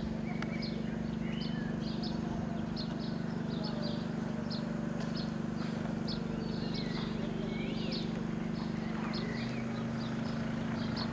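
Small birds chirping repeatedly in short, high calls over a steady low hum that shifts about nine seconds in.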